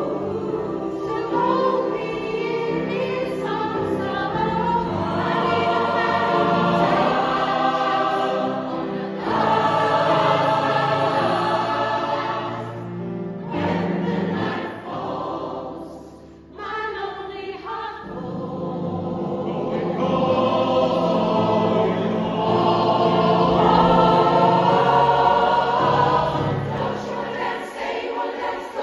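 A large mixed choir of women's and men's voices singing together, with a brief lull just past halfway before the voices swell again.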